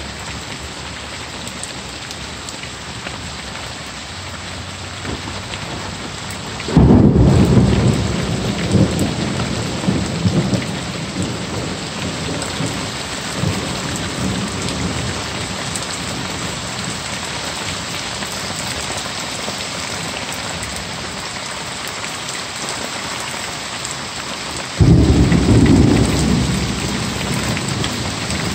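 Heavy rain falling steadily, with two sudden loud claps of thunder. The first comes about a quarter of the way in and rumbles on for several seconds. The second comes near the end.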